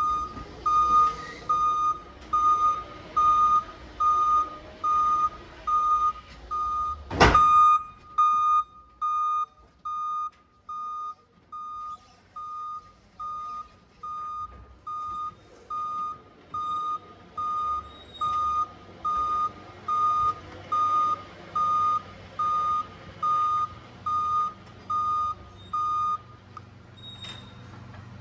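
Forklift reversing alarm beeping at a steady high pitch, about once a second, stopping a couple of seconds before the end. A single sharp bang a little after seven seconds in is the loudest sound.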